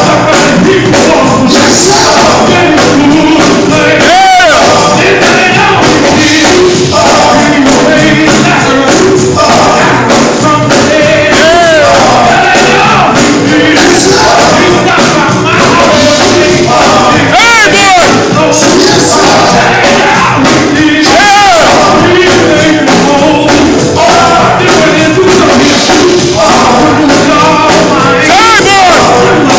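Live gospel music, very loud: sung vocals with wavering held notes over a band keeping a driving beat.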